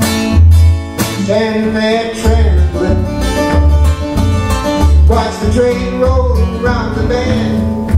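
Live acoustic guitars playing a bluesy rockabilly tune with a steady low bass pulse, and a man singing along from about a second in until near the end.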